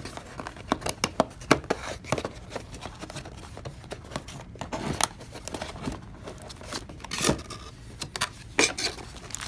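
Camera box packaging being rummaged through by hand: irregular clicks, knocks and scrapes of cardboard, with some rustling of plastic wrapping.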